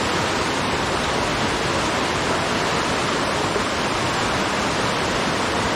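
Rushing water: a steady, even rush of water with no breaks.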